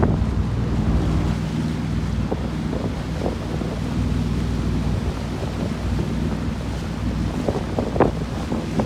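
Motorboat engine running steadily under way, with wind buffeting the microphone and a few short splashes of water against the hull, the loudest near the end.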